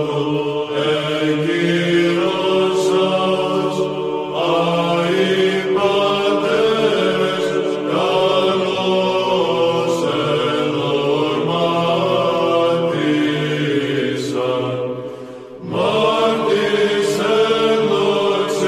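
Byzantine chant: an Orthodox hymn sung in long, held notes, with a short break in the singing about fifteen seconds in before it resumes.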